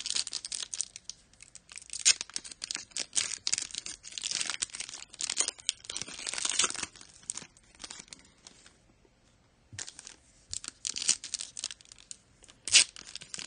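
Trading card pack wrappers being torn open and crinkled: runs of crackling tears and rustles, with a short quiet pause a little after the middle.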